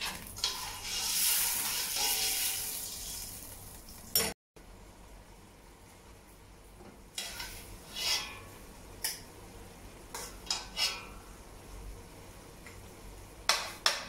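Metal spoon stirring rice in water in a stainless steel pot, a swishing scrape lasting a few seconds. After an abrupt break, the spoon scrapes and clinks against the steel pot in short strokes as cooked rice is scooped out.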